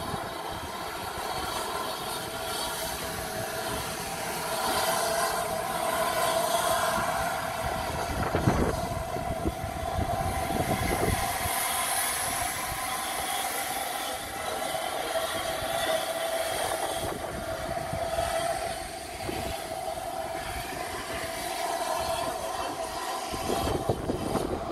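Steam train on the move, with a steady pitched tone over continuous running noise and a heavier low rumble about eight to eleven seconds in.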